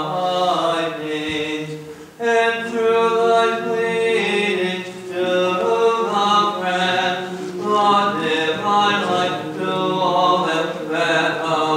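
Men's voices chanting a Byzantine-style Orthodox hymn in unison, the melody moving in long held notes over a steady drone, with a short breath break about two seconds in.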